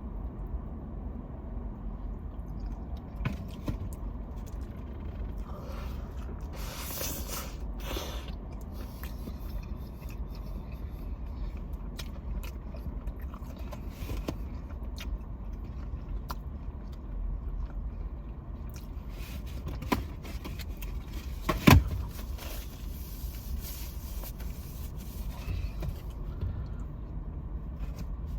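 Close-up eating sounds: chewing and mouth clicks while eating a hot chicken slider, with a short rustle about seven seconds in and one sharp knock about twenty-two seconds in. A steady low rumble runs underneath.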